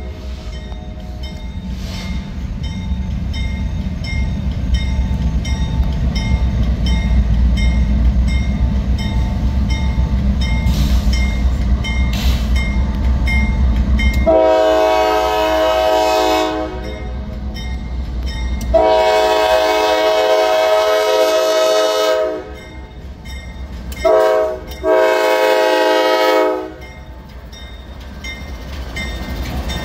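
Diesel freight locomotive approaching with a rising low engine rumble, then sounding its multi-note air horn in the long, long, short, long grade-crossing pattern. The lead unit then rolls past close by.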